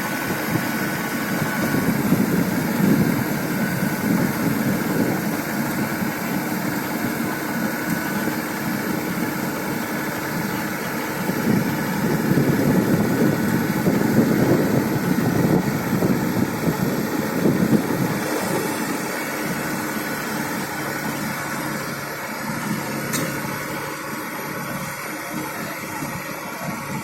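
Combine harvester engine running steadily, swelling louder twice: briefly a couple of seconds in, and for several seconds in the middle.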